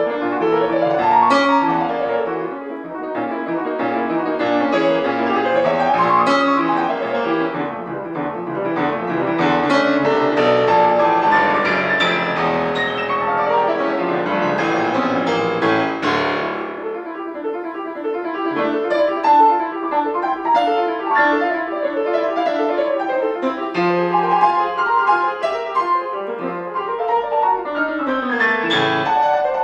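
Solo grand piano playing a dense classical passage, with a full, heavy bass until about halfway through, when the low notes drop away and the music moves to the middle and upper register.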